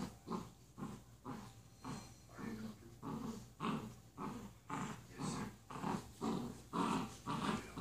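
Basset hound puppy and goldendoodle play-growling as they wrestle, the growls coming in short repeated bursts about two a second.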